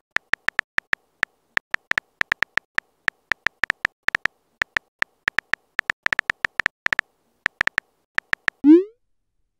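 Phone keyboard typing sound effect: short, clicky taps at an uneven pace, several a second. About a second before the end, a quick rising swoop as the message is sent.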